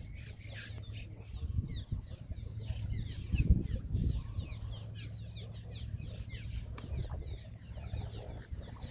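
A flock of small birds calling overhead: many quick, high chirps and twitters overlapping without pause, over a low steady rumble.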